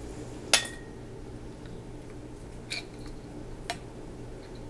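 Flat metal canning lids being set onto the rims of glass mason jars: one sharp clink with a short ring about half a second in, then two lighter clicks later on.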